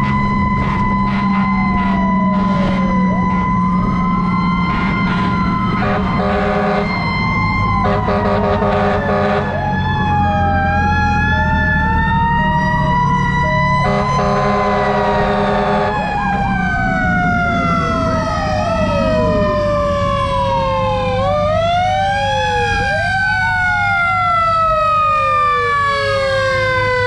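Several fire-truck sirens wail together. One holds a high steady tone and then slowly winds down through the second half, while others sweep up and down over it. A few pulsed horn blasts come about a quarter and about halfway through, over the steady low rumble of the truck's engine.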